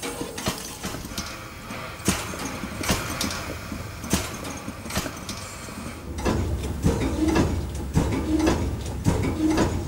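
Steam locomotive's air-brake compressor, a small reciprocating steam pump, working with a knock roughly once a second over a steady steam hiss.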